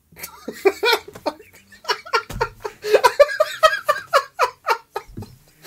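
Men laughing in a run of short, uneven bursts, loudest around the middle.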